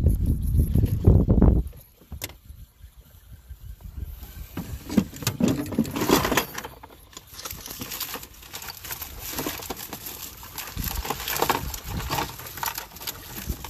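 Close handling noise. A loud low rumble on the microphone for the first two seconds, then irregular light clicking, rattling and rustling as a fishing rod and reel are handled.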